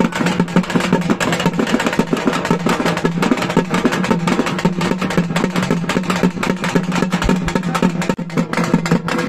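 Music with fast, dense drumming over a steady low note.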